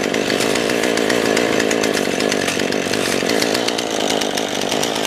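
Gas chainsaw running steadily at a high, even pitch, cutting wood.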